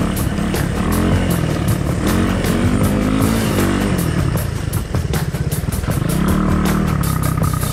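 Honda XR200's single-cylinder four-stroke engine heard from on board, revving up and easing off as the dirt bike climbs and crosses mounds, its pitch rising and falling several times.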